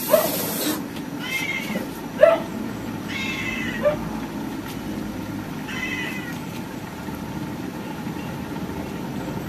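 A cat meowing, a handful of short calls in the first six seconds or so, the loudest about two seconds in, over steady low background noise; a high hiss stops under a second in.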